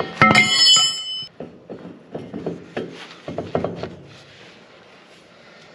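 Steel tools working on a rotary harrow's tooth-holder bolts: a loud metal clank that rings for about a second just after the start, then a string of lighter metallic knocks and clicks.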